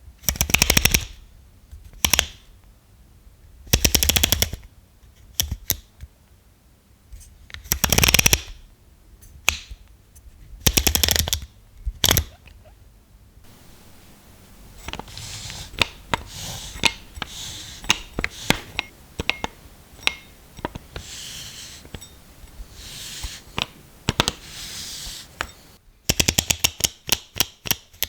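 Jupiter-36B lens's aperture ring turned through its click stops: short bursts of rapid clicks, then a longer stretch of softer, denser clicking, then a fast, even run of clicks near the end.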